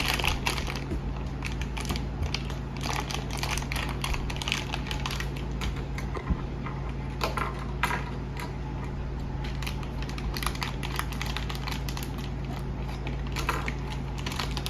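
Plastic toy packaging crinkling and tearing as a mystery bag is opened by hand, in many short irregular crackles, over a steady low hum.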